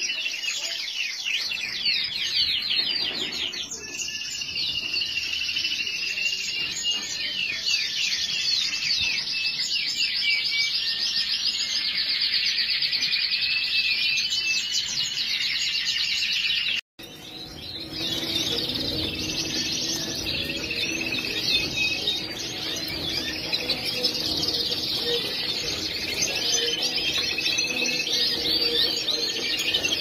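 Domestic canary song: long, rapid, high-pitched trills and rolling phrases, one after another with hardly a pause. It cuts out briefly about 17 s in, and after that a low steady hum runs beneath the singing.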